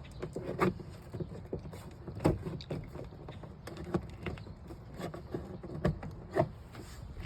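Door panel remover tool prying behind a 2002 Chevy Silverado's rear door panel to release its retaining clips: irregular clicks and scrapes, with several sharper knocks a second or two apart.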